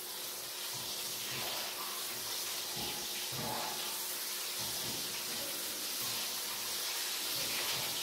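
Food sizzling in a frying pan on a gas stove as it is stirred with a spatula: a steady hiss, with a few faint knocks of the spatula against the pan.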